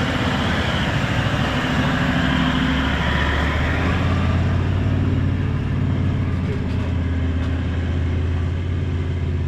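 Toyota Land Cruiser 76 engine running at low speed as the four-wheel drive climbs a steep dirt track, a steady low drone with tyre noise on gravel.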